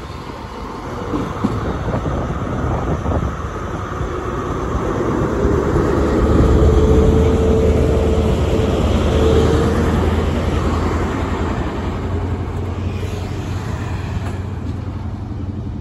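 Class 43 HST power car's diesel engine pulling a train away from a standstill, growing louder as the power car passes close by about six to ten seconds in, with a held whistling tone at that point. The coaches then roll past with steady wheel and rail noise.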